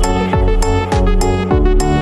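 Background music with a steady beat: deep bass drum hits about every 0.6 s under sustained pitched notes.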